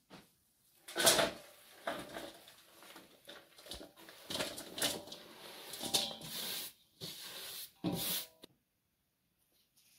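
Shredded cabbage sliding and rustling off a wooden cutting board into a stainless steel bowl, with a sharp knock about a second in and uneven scraping swells as the pile is pushed off. It stops shortly before the end.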